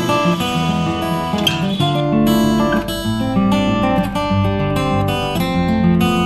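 Background music of a strummed acoustic guitar.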